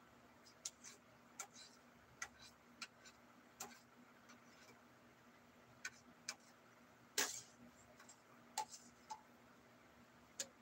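Fingers tapping on a smartphone touchscreen while typing: scattered light clicks at uneven intervals, with a louder tap about seven seconds in, over a faint steady hum.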